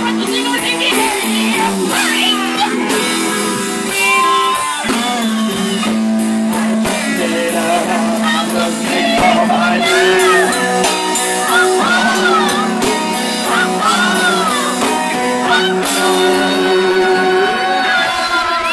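Live band playing, with a male and two female singers singing over electric guitar and drums.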